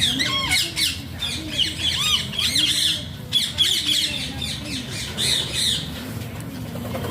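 Alexandrine parakeet giving a rapid run of harsh squawks and chattering calls, many short sweeping notes one after another, with a brief pause about three seconds in.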